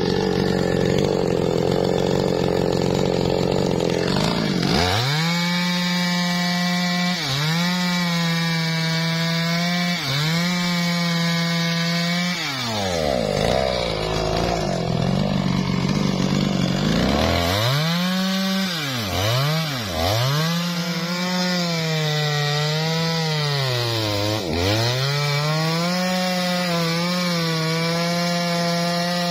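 Two-stroke chainsaw cutting into a teak trunk at full throttle. Its high engine pitch keeps dipping and recovering as the chain loads up in the wood, and it sinks into a lower, rougher sound for several seconds twice: at the start and again about halfway through.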